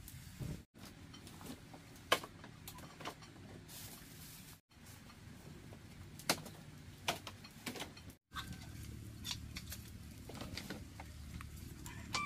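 Scattered light clicks and taps of dishes, pots and firewood being handled around an open wood fire, over a low steady rumble; the sound cuts out briefly three times.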